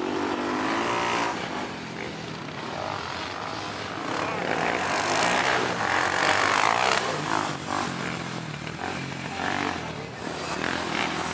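Racing quad (ATV) engines revving up and down on a dirt motocross track as riders work the throttle. One quad, a Honda, passes close and is loudest about five to seven seconds in.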